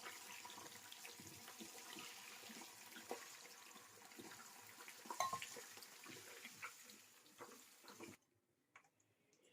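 Faint sizzling and crackling of paneer bondas deep-frying in oil in a kadai, with a few small clicks. It cuts off about eight seconds in.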